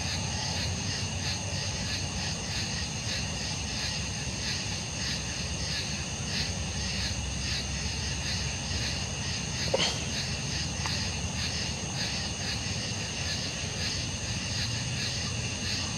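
Crickets chirping in a steady rhythm, about three chirps a second, over a constant high ringing. A brief rising chirp cuts through a little under ten seconds in.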